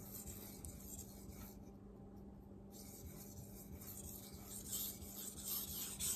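Light sharpening passes of an SG2 steel kitchen-knife blade on a soaked NanoHone 1000-grit water stone: faint, soft scraping strokes that pause briefly about two seconds in and grow more audible from about four and a half seconds in. A steady low hum runs underneath.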